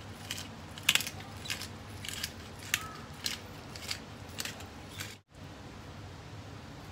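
Handheld pepper mill being twisted, cracking black peppercorns: a run of sharp, crunchy clicks that stops about five seconds in, followed by only a faint steady background.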